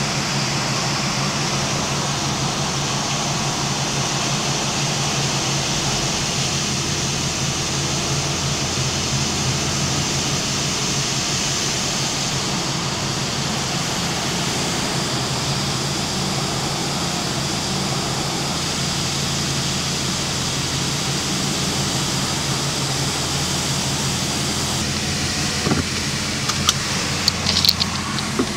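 Automatic car wash jets spraying water onto a car: a steady hiss over a steady low hum. A few sharp clicks and knocks near the end.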